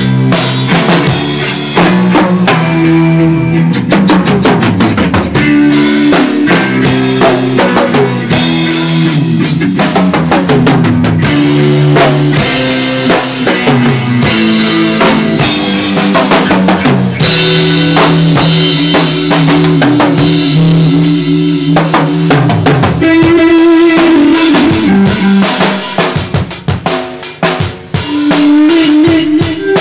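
Live band jamming: a drum kit played hard with cymbals, snare and bass drum, over held low notes that change pitch every second or two. The playing thins out and changes pattern about three quarters of the way through before the full band comes back in.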